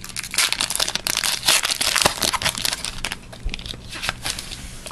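Foil wrapper of a trading-card pack crinkling and crackling as it is pulled from the box and torn open by hand.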